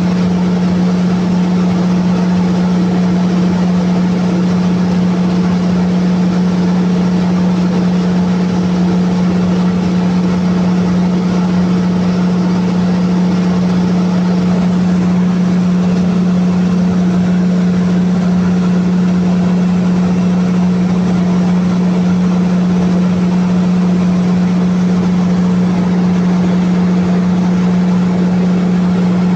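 Cummins QST30 V12 diesel engine of a generator set running steadily at its rated speed of about 1800 rpm, a loud, constant drone that does not change.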